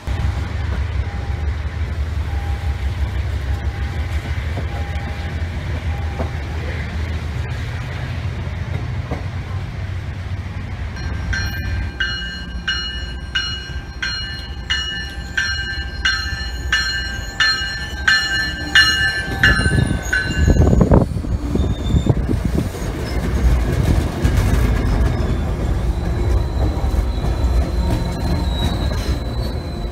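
MBTA push-pull commuter train (HSP46 diesel locomotive with bilevel coaches) arriving at a station platform. A steady low rumble builds, then a bell rings at about one and a half strikes a second for some eight seconds as the cab car pulls in. After a short loud burst, the coaches roll past with heavy wheel rumble and clatter and a faint high squeal.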